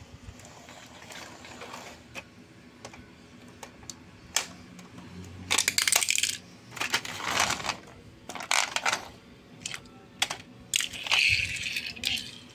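Plastic toy car pushed and handled on a hard floor: clicking and rattling from its plastic body and wheels. The noise comes in several short bursts starting about five seconds in, after a quieter stretch of faint clicks.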